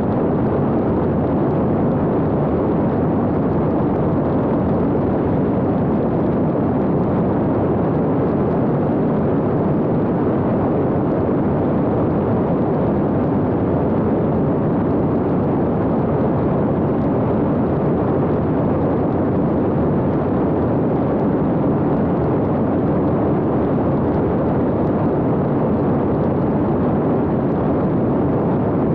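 Steady, unbroken rush of airflow over an X-UAV Talon fixed-wing drone's onboard camera in cruise flight, with no distinct motor tone standing out.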